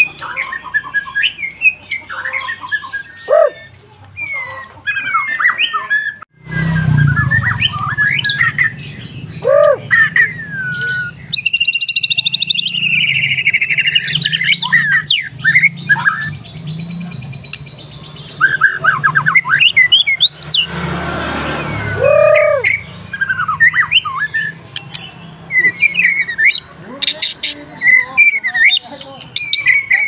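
White-rumped shama (murai batu) singing non-stop: a varied run of short whistled notes that sweep up and down. About a third of the way in comes a long trill falling in pitch, and about two-thirds through a harsh, rasping burst.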